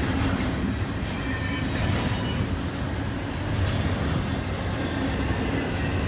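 Double-stack container cars of a BNSF intermodal freight train rolling past, a steady, heavy rumble of steel wheels on rail.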